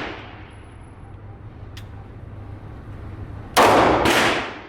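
Two pistol shots about half a second apart near the end, each with a long echoing tail. The ringing tail of an earlier shot fades out at the start, and there is a faint click about two seconds in.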